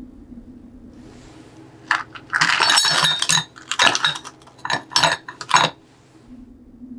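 Ice cubes dropped into a bowl around a glass sake bottle, clinking and rattling against the glass. The clinking starts about two seconds in: a second of dense rattling, then a handful of single sharp clinks.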